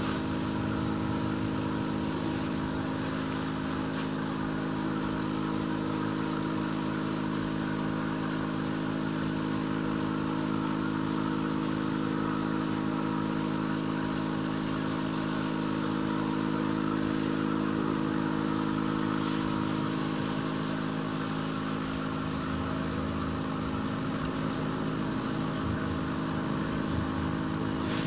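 Aquarium air pump humming steadily: a low, even electric drone, with a faint, rapid high-pitched pulsing over it.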